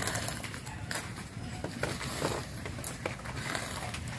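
Soft, irregular rustling and small crackles of ash gourd leaves being handled as their tough veins are pulled off by hand.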